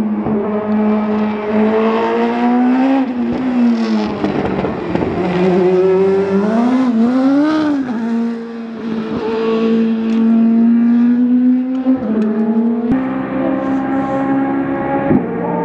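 Toyota TS030 Hybrid LMP1 race car's 3.4-litre V8 running at speed on track. The engine note holds mostly steady, drops about three seconds in, rises and falls quickly near the middle, and dips again near the end.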